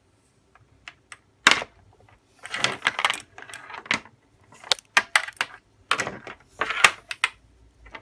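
Handling noise from USB and Lightning charging cables: plastic and metal plugs clicking and knocking together, and cable lengths rustling and scraping across a table, in a string of sharp clicks and short scrapes.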